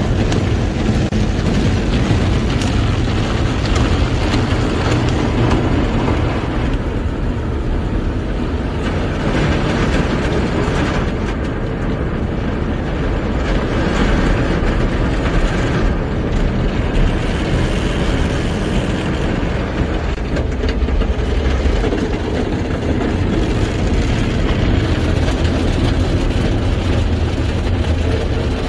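Automatic drive-through car wash heard from inside the car: water spray and wash brushes working over the windshield and body, a steady deep rushing noise with no pauses.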